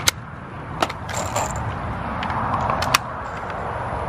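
Brass rifle cartridges clicking as they are pressed one by one into a polymer rifle magazine: a few sharp metallic clicks over a steady rushing background.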